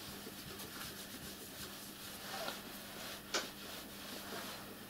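Soft, faint rubbing of a cloth wiping over the painted boiler cladding of a miniature steam locomotive, with one sharp click a little over three seconds in.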